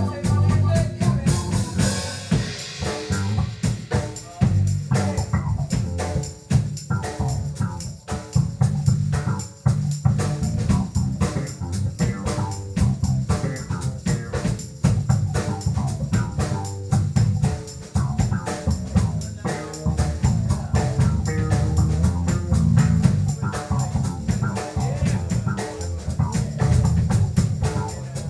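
Live band playing an instrumental passage: a drum kit keeps a steady beat under an electric bass line and electric guitar. A cymbal crash rings out over the first couple of seconds.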